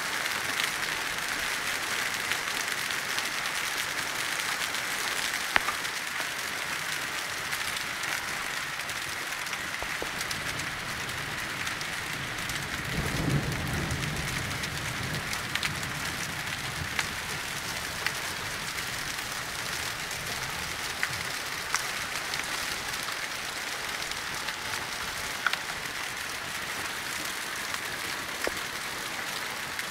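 Hail and rain pelting down on muddy ground and paving: a steady hiss scattered with sharp clicks of individual hailstones striking. A brief low rumble swells and fades about halfway through.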